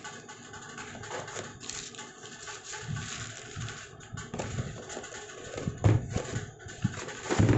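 Packaging being handled and opened by hand: irregular rustling and crinkling, with a few soft thumps, the loudest near the end.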